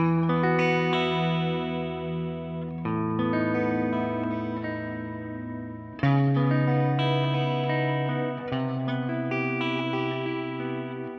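Telecaster-style electric guitar playing ambient extended chords through effects pedals, including Esus2 and C♯m9: four chords struck about three seconds apart, each left ringing with the notes sustaining into one another and fading slowly.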